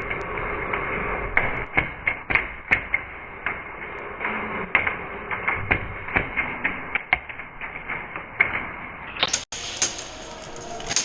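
Airsoft gunfire and BB hits: sharp cracks and taps at irregular intervals, sometimes several a second.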